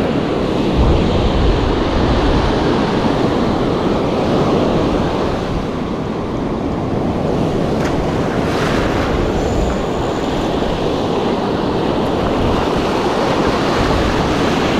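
Ocean surf breaking and washing up a sandy beach, a steady rushing wash, with wind buffeting the microphone in low rumbles.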